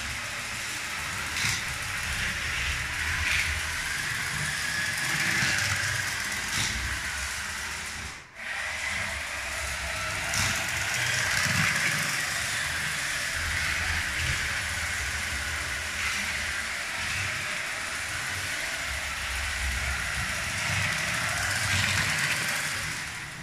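LEGO 12V train motor carriages whirring steadily as they push a motorless train along plastic 12V track, the wheels running on the rails with an occasional click.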